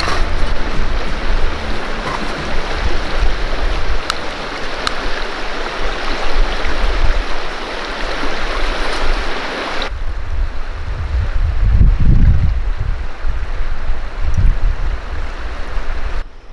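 River water rushing over rocks, a steady hiss. About ten seconds in it cuts to a quieter stretch with low gusty rumbling, like wind on the microphone.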